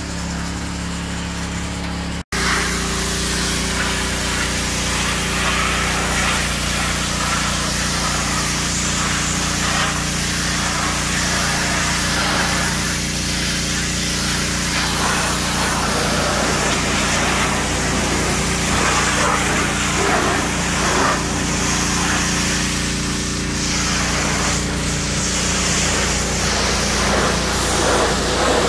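Pressure washer spraying a steady jet of water over a pickup's painted steel hood and grille: a continuous hissing spray over a steady engine hum, with a brief dropout about two seconds in.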